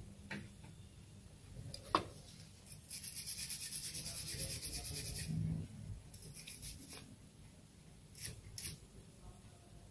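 A stiff bristle brush scrubbing in quick, rapid strokes for about three seconds, then a shorter bout of scrubbing and two single strokes near the end. A sharp click comes about two seconds in.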